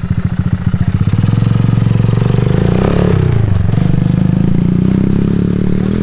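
Small dual-sport motorcycle engine running as the bike pulls away along a dirt track. Its pitch rises, dips briefly about three seconds in, then climbs steadily again.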